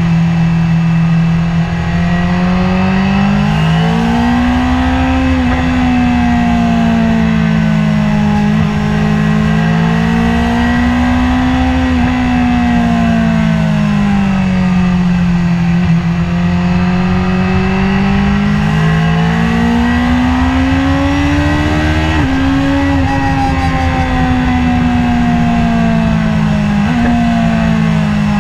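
BMW S1000RR's inline-four engine on board, held in second gear, its pitch rising and falling slowly as the throttle is rolled on and off through slow corners, with a couple of quick blips. Steady wind rush underneath.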